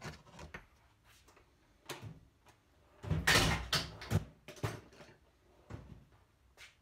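Workshop handling noise: a few short knocks, then a loud clatter lasting about a second about three seconds in, like tools or parts being moved about off the bench.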